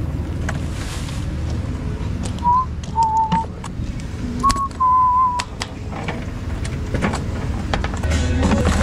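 A person whistling a few short notes in the middle, over a steady low hum, with scattered clicks and knocks.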